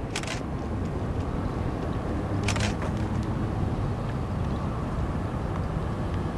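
Boat engine running at idle speed, a steady low rumble, with two brief hissing bursts near the start and about two and a half seconds in.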